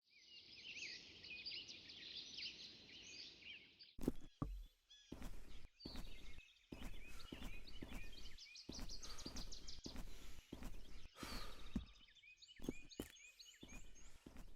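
Birds chirping and singing: a dense chorus for about four seconds, then a string of short bird-call clips with rapid repeated chirps, joined by abrupt cuts.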